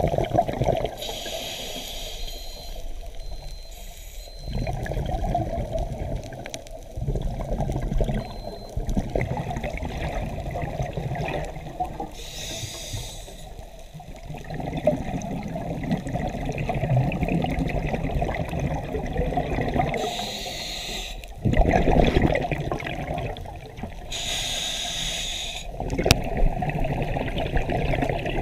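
Scuba diver's regulator breathing underwater: a few hissing breaths several seconds apart over a steady bubbling, rumbling water noise against the camera housing.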